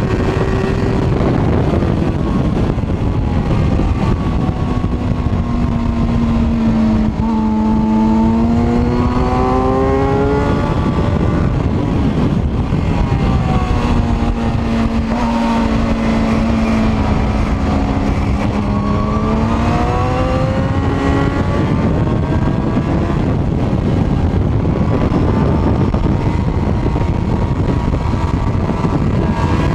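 Suzuki GSX-R sport bike engine heard on an onboard microphone at track speed, under a heavy rush of wind. Twice the engine note drops and holds low through a corner, then climbs as the throttle opens, about a third of the way in and again past the middle.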